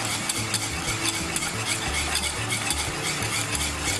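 Wire whisk beating a yogurt sauce in a metal saucepan, with steady scraping and clicking strokes about three or four times a second. The sauce is thickened with flour and tahini and is kept moving so it doesn't go lumpy or split.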